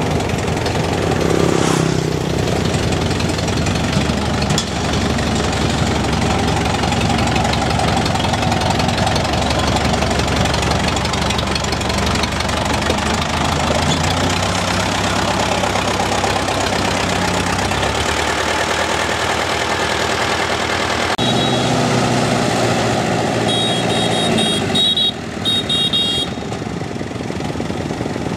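Engine running steadily, its note shifting a few times, with a short run of high beeps near the end.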